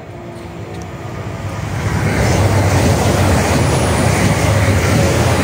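A train approaching and passing at speed: a rushing, rumbling noise that builds over the first two seconds, then holds loud and steady.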